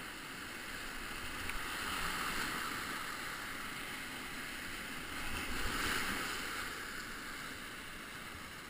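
Whitewater rapids rushing around a kayak, a steady wash of churning water that swells about two seconds in and again near six seconds.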